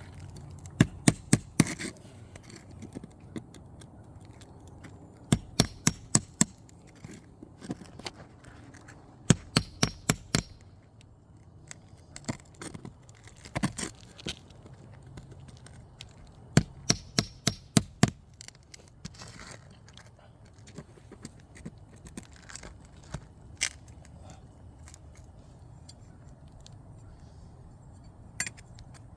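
Asphalt roof shingles being lifted and pried, cracking and tearing loose in quick bursts of sharp snaps, several clusters a few seconds apart. The shingles are hail- and wind-damaged and are judged unable to be properly repaired.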